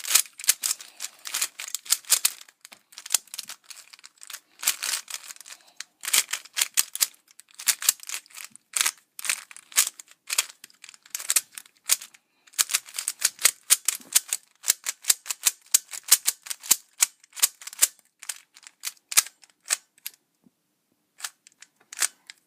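Stickerless 3x3 speed cube being scrambled by hand: fast runs of plastic clicking as its layers are turned, broken by short pauses, the longest near the end.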